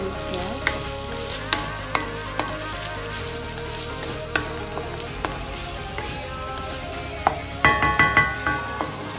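Petai beans and sambal belacan sizzling in a nonstick wok as a wooden spatula stirs them, with scattered sharp taps of the spatula against the pan. A short burst of loud ringing tones comes near the end.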